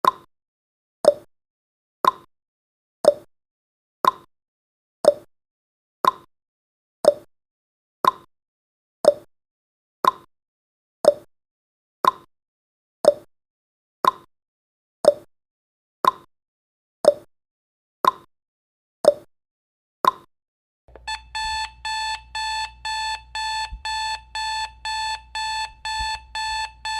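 Countdown timer sound effect: a short tick once a second, then, as the count reaches zero about two-thirds of the way through, an alarm-clock alarm beeping rapidly and continuously.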